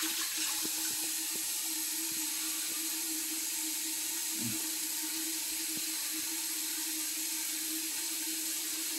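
Bathroom sink tap running with a steady, even hiss of water, under a faint constant hum, with a few soft small ticks.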